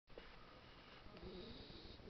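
A two-month-old pet snoring faintly.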